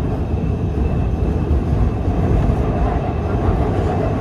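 Subway train running along the line, heard from inside the car: a steady low rumble of wheels on rail with a faint high whine.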